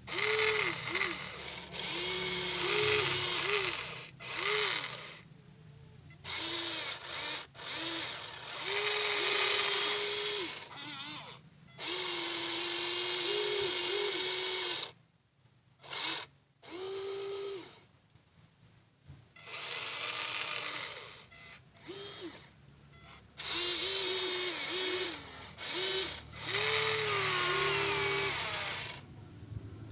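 Huina 1593 RC excavator's small electric motors whirring through their gearboxes in repeated stop-start bursts as the controls are worked. The whine's pitch steps up and dips within each burst.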